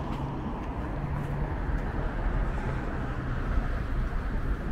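Road traffic on a busy multi-lane street: a steady low rumble of engines and tyres.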